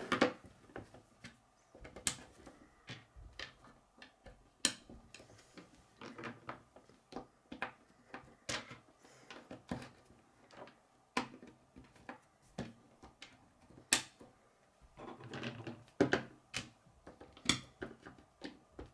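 Chunky Kid K'nex plastic pieces clicking and snapping together and being set down on a wooden tabletop: irregular sharp clicks, a few much louder than the rest, with a busier spell of rattling and handling about three quarters of the way through.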